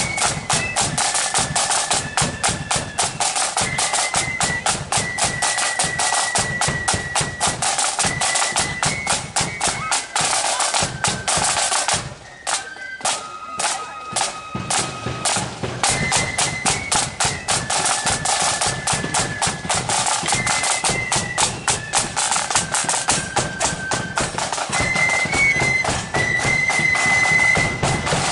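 Marching flute band playing: a high flute melody over massed side drums beating fast rolls and strokes, with a bass drum. The drumming briefly thins out about twelve seconds in while the flutes carry on, then comes back in.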